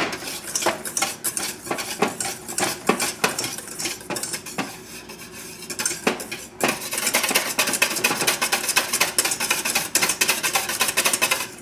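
A wire whisk beats fast against a metal bowl in a rapid run of clinks and scrapes. It eases off for a couple of seconds about halfway through, then picks up again. It is whipping a cooked egg-yolk custard to cool it.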